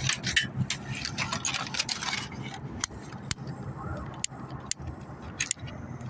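Crinkling and rustling with many sharp clicks and light metallic rattles, as a disposable aluminum-pan charcoal grill kit is handled and unwrapped; the crinkling is busiest in the first couple of seconds, then gives way to scattered clicks. A low steady hum runs underneath.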